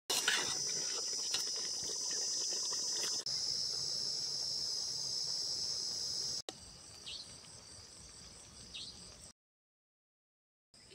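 Night-time insect chorus of crickets, a steady high trill, in three abruptly cut segments, louder in the first six seconds and softer after, with a few light clicks in the first three seconds and two short chirps later on. The sound drops out completely for over a second near the end.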